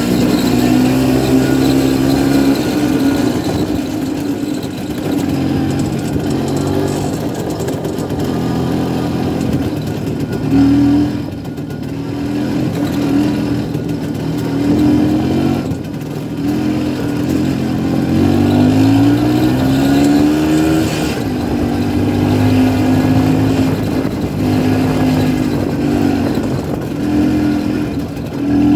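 The 250 cc single-cylinder two-stroke engine of a 1967 Pannonia P10 motorcycle running under way, its pitch rising and falling with the throttle. About eighteen seconds in it climbs steadily in pitch for a few seconds, then drops back.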